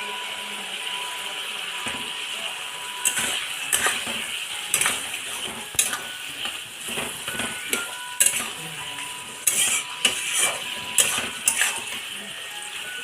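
Spatula scraping and knocking against a kadai, stirring mustard paste into the drumstick pieces, over a steady sizzle from the pan. The strokes begin about three seconds in and come irregularly.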